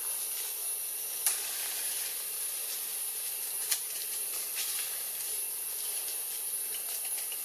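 A steady high-pitched hiss, with two brief sharp clicks about a second in and again a few seconds later.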